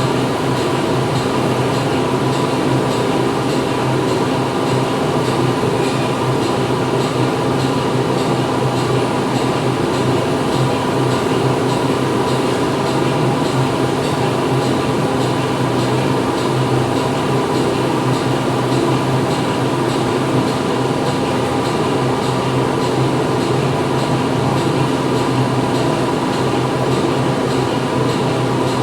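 Factory machinery running steadily: a loud, unbroken drone of machines with several constant hums layered over a dense mechanical hiss.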